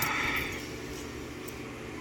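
Steady low background hum, with a brief scraping sound at the start and a faint click about a second and a half in.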